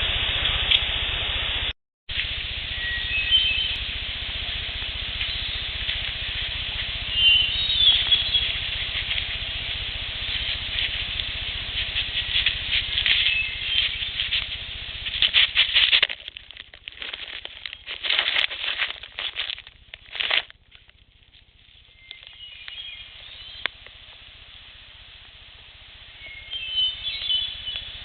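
Field recording with a steady hiss, a few short bird chirps, and bunched bursts of scratching or rustling close to the recorder through the middle stretch.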